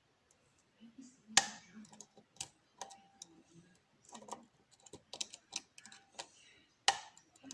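Irregular small metallic clicks and taps of a lock pick working the pins of a pin-tumbler challenge lock under light tension, with two louder clicks, one about a second and a half in and one near the end.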